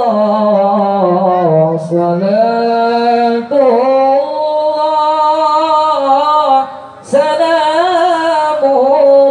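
A young man sings Arabic devotional verse (sholawat) solo and unaccompanied into a microphone. He holds long, ornamented notes in phrases broken by three short pauses for breath.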